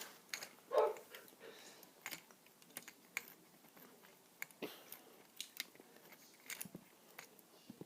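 Scattered light plastic clicks and taps, spaced irregularly: Lego pieces being handled and flick missiles fired from their launchers.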